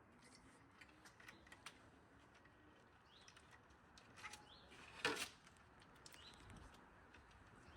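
Near silence with faint birds chirping, a few short rising chirps, and scattered small clicks, the sharpest about five seconds in.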